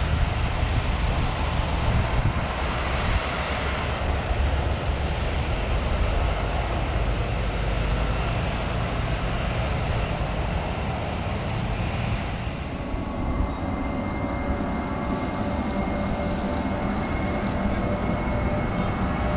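Airliner jet engines heard at a distance over a steady low rumble. A faint high whine fades out about five seconds in, and a steady whine of several pitched tones comes up about two-thirds of the way through.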